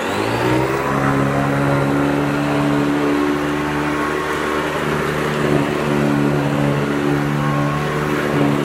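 Hoover Decade 80 upright vacuum cleaner switched on: its motor spins up with a rising whine over the first second, then runs at a steady pitch.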